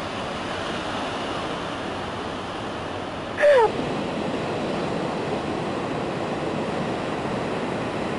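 Steady rush of breaking ocean surf on a beach. About three and a half seconds in, a brief falling-pitched cry cuts across it.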